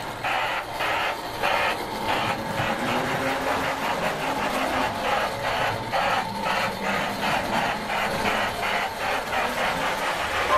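Lionel O gauge GS-4 Daylight model steam locomotive running round the track, its sound system chuffing steadily at about three to four chuffs a second over the running noise of the motor and wheels.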